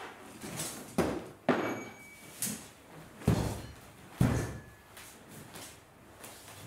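Five sharp knocks and thuds on a wooden dojo floor over about three seconds, the last two heavier and deeper, from feet stamping as the practitioners step in. A brief metallic ring follows the second knock.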